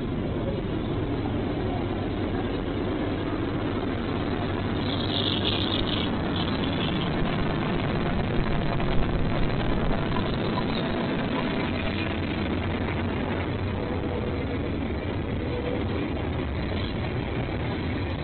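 Freight train passing with a steady rumble. A brief high-pitched sound comes in about five seconds in and lasts a couple of seconds.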